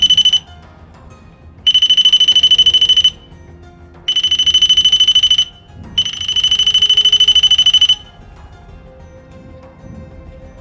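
Touch-sensitive doorknob alarm going off in four bursts of rapid high-pitched beeping, about ten beeps a second. The bursts are separated by short pauses, and the alarm falls silent after about eight seconds.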